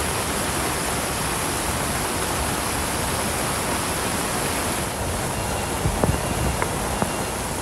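Muddy floodwater rushing down a slope and across a road in a heavy downpour: a steady rush of water and rain. The rush thins a little about five seconds in, and a few sharp knocks come near the end.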